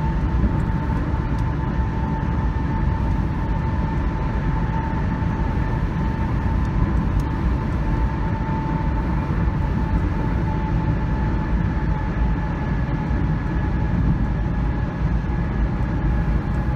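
Steady running noise of a moving road vehicle: an even low rumble with a faint steady whine over it.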